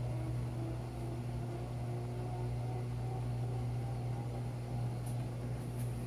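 Panasonic 16 kg top-load washing machine in its spin cycle, the drum spinning a load of towels at speed: a steady hum with a low drone and a faint, slightly wavering whine above it.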